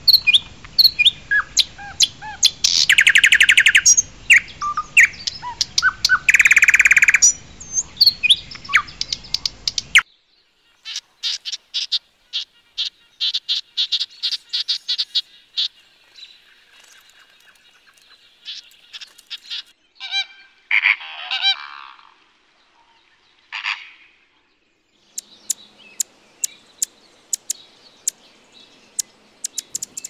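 Small songbirds calling in a run of separate clips. First come dense chirps with two long buzzing trills. Then there is a rapid run of evenly repeated notes, scattered calls, and sharp ticks near the end.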